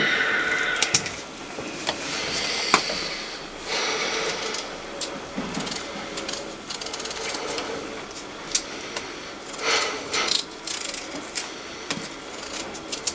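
A small knife peeling a raw potato by hand: irregular short scraping strokes with small clicks as the blade cuts the skin.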